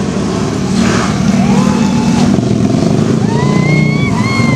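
Engines of off-road side-by-side UTVs running loudly. A high tone rises, holds and falls twice over the engine noise.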